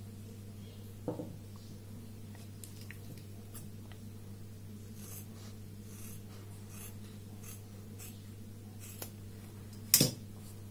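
Stiff brown paper being handled and rubbed against a fabric mask, with faint scattered crinkles and scrapes, a soft knock about a second in, and a sharp metallic clack near the end as scissors are picked up. A steady low electrical hum runs underneath.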